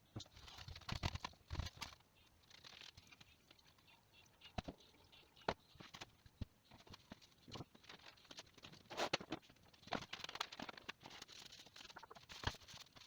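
Irregular clicks, taps and short scrapes of tools and small metal pump parts being handled during a power steering pump strip-down.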